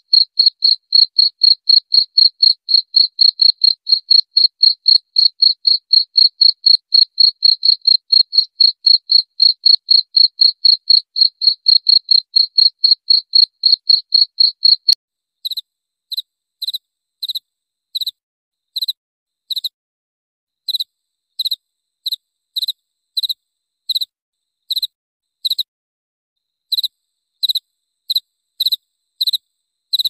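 Cricket chirping, a fast, even run of about four chirps a second. About halfway through it switches, at a click, to quieter, slower and less even chirps of one to two a second.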